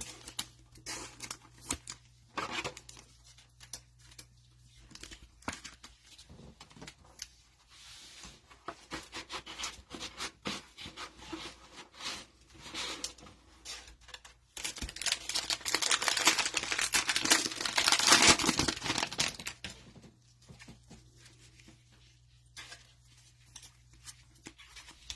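Plastic cellophane wrapper of a Donruss football card cello pack being handled and torn open: scattered crinkles and clicks of cards and wrapper, then a loud stretch of tearing and crinkling for about five seconds from about 15 seconds in.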